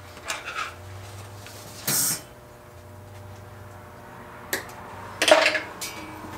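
Short handling noises at a metal workbench, a few knocks and scuffs, the loudest just after five seconds in, over a faint steady low hum.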